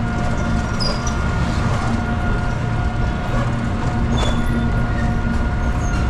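Gearless scooter riding along a street: its engine runs steadily with a constant whine, under a low rumble of wind and road noise on the microphone.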